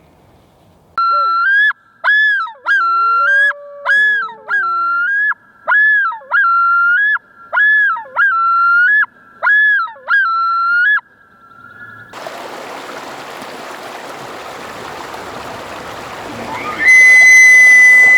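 Common loon yodel: about ten repeated rising two-note phrases, roughly one a second, with a lower gliding call beneath the first few. It gives way to running stream water. Near the end a bull elk's bugle rises into a loud, steady high whistle.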